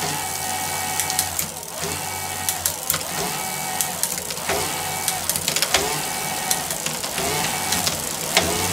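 Bafang BBS02 mid-drive motor whining as it drives the chain and spinning rear wheel, with the chain running over the cassette. The whine cuts out briefly and picks up again about every second and a half, with clicks of the chain jumping cogs: the shift sensor cutting motor power as each gear change is made.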